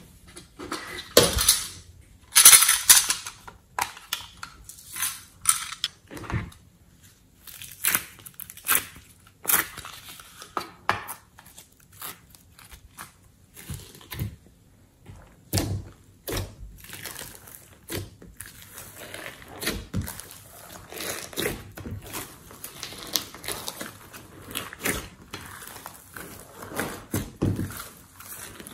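Slime loaded with glitter, sequins and small beads being pressed, folded and stretched by hand in a glass dish: irregular sticky squishing with crackling and small clicks, loudest around two to three seconds in.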